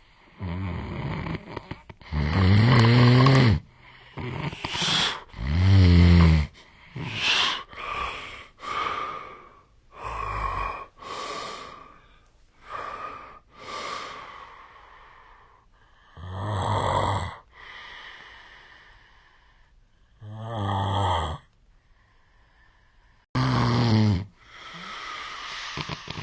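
A man snoring heavily in his sleep: loud, irregular snores with a low rattle, the loudest about two and six seconds in, mixed with shorter snoring breaths and a few brief pauses. The sleeper suspects this loud snoring points to a long-standing sleep disorder.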